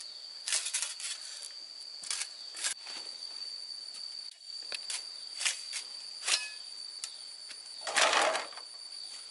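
Sharp knocks at irregular intervals, with a louder, longer knock about eight seconds in, over a steady high drone of insects.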